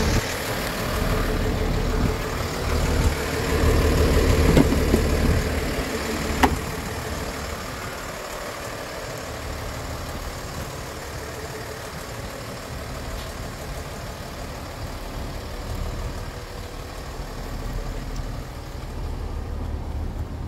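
Cummins inline-six diesel engine of a utility truck idling steadily, heard close at first and then more faintly from farther away. A single sharp click about six seconds in.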